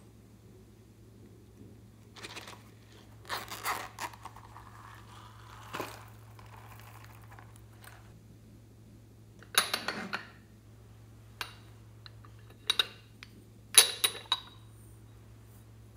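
Small sprinkles rattling out of a plastic shaker container onto the toppings in a glass dish, in a few short pours. Later a few sharp clinks of a ceramic lidded pot being handled and its lid lifted off.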